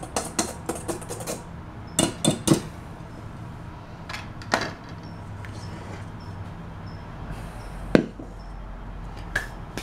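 Wire whisk stirring dry flour in a stainless steel bowl, rapid metal clicks against the bowl that stop about a second in. Then a few sharp knocks, a click as the whisk is set down, and a heavier thump near the end.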